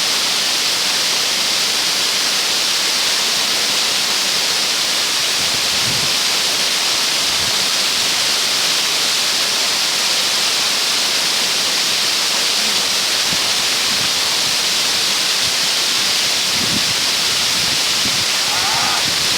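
Waterfall pouring: a steady, loud rush of falling water, with a few soft low thumps.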